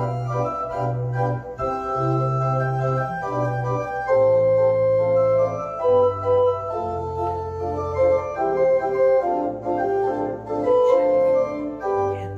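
Organ playing a slow worship prelude: held chords over sustained bass notes that change every second or so.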